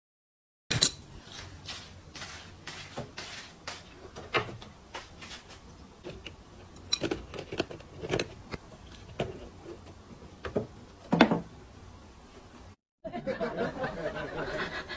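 A string of irregular clicks and knocks, a few of them louder, then a person's voice near the end.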